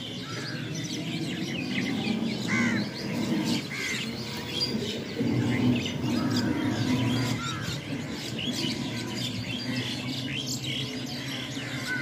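Many birds chirping and calling at once in a dense, overlapping chorus of short chirps. A low engine hum from a passing motorised three-wheeler swells in the middle.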